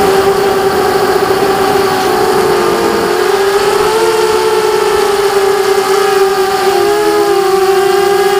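KingKong 260 FPV quadcopter's brushless motors and propellers whining steadily in flight, the pitch wavering and splitting in the middle as the motors change speed.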